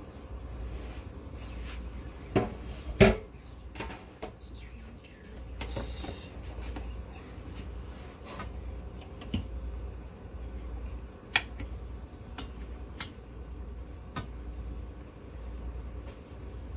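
Metal tongs and utensils clinking and knocking against stainless steel pans on a stovetop: a handful of sharp clicks, the loudest about three seconds in, over a low steady hum.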